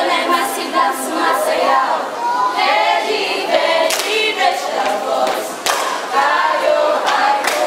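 A group of young voices singing together, with scattered hand claps.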